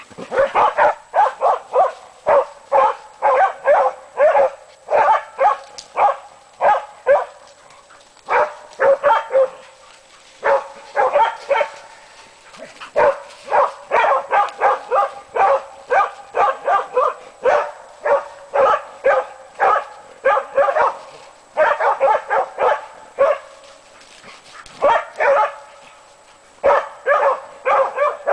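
Two hunting dogs barking steadily at a moose calf they are holding at bay. The barks come in fast runs of about two to three a second, broken by a few short pauses.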